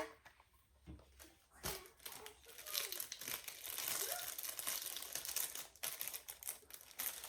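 Clear plastic packaging crinkling and rustling as it is handled, after a single sharp click at the start.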